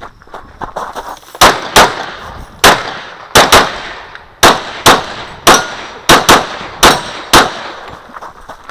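Glock 35 pistol in .40 S&W firing a rapid string of about a dozen shots, many in quick pairs, the first about one and a half seconds in, with fainter sharp clanks between the shots.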